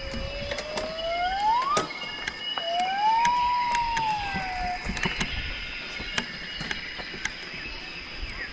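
Jungle ambience sound effect: two long whistled animal calls gliding in pitch, the first rising over about two seconds and the second rising then falling, over a bed of steady high calls and scattered clicks.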